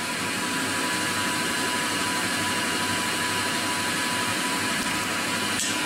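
Steady whir of a Tormach 15L Slant Pro CNC lathe running without cutting, with a faint steady tone and a light click near the end.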